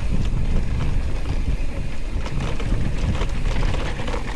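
Wind buffeting the microphone over mountain bike tyres rattling along a dirt trail at speed: a steady low rumble with scattered small clicks and knocks.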